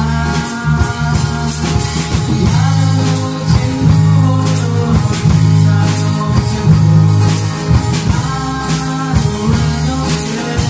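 A live band plays a gospel song. Two men sing into microphones over electric bass, strummed acoustic guitar and a steady drum beat.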